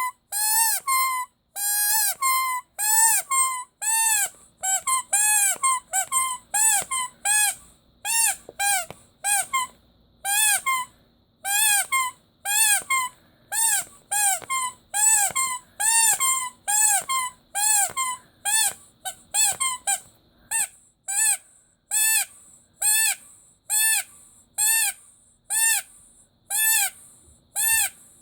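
Squeaky rubber toy squeezed over and over, about one squeak a second and a little faster later on. Each squeak is short, pitched, and rises then falls.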